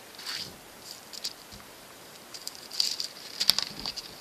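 Rustling and handling of a sheet of carbon paper on a cutting mat, with a few short scratches and light taps and a sharper click about three and a half seconds in.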